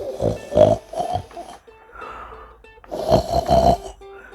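A person imitating loud snoring: two long snores, the second about three seconds in, over soft plucked-string background music.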